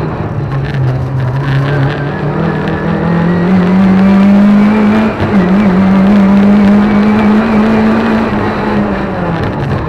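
Lada 2101 competition car's four-cylinder engine, heard from inside the cabin under hard acceleration. The revs climb steadily, drop briefly at a quick upshift about five seconds in, then hold high and ease off near the end.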